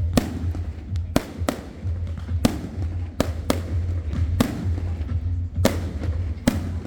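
Fireworks bursting overhead: about nine sharp bangs at uneven intervals, some in quick pairs, over music with a heavy steady bass from a sound system.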